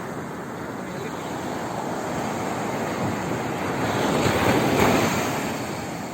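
Sea waves breaking on the shore. The wash of a wave swells to its loudest about four to five seconds in, then eases off.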